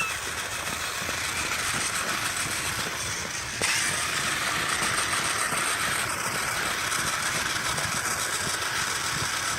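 Electric RC toy car running, a steady whirring hiss from its motor, gears and tyres that gets louder about three and a half seconds in.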